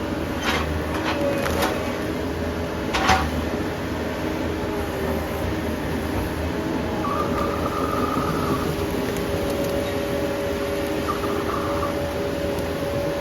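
Engine of a piece of heavy equipment running steadily, with a few sharp knocks in the first three seconds and a higher tone that comes and goes in the second half.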